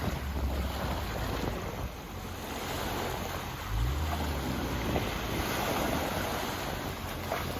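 Sea waves washing onto the shore, with wind buffeting the microphone in uneven low gusts.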